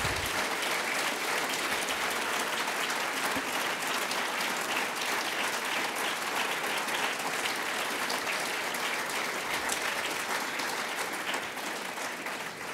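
Audience applauding: many hands clapping at a steady level, fading away near the end.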